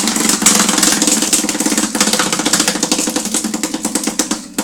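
Bonus prize wheel spinning: rapid ticking from its pointer that gradually slows as the wheel winds down.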